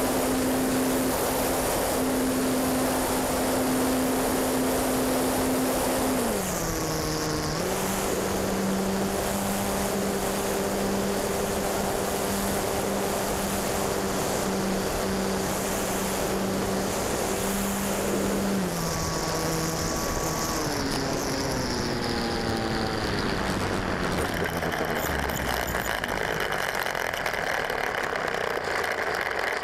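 Onboard sound of a radio-controlled T-28 model plane's motor and propeller in flight, with wind noise on the microphone: a steady hum that drops in pitch about six seconds in and again a little past the middle as the throttle is pulled back. The hum then slides down and fades on the landing, leaving a rough rumble of the plane rolling over the paved ground near the end.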